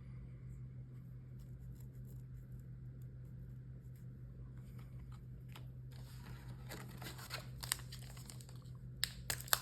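A steady low hum at first. About six and a half seconds in, sporadic crinkling and rustling begins, from a foil booster pack wrapper and trading cards being handled, and it grows denser and louder near the end.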